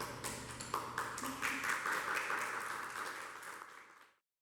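Scattered hand claps filling into applause, fading out about four seconds in.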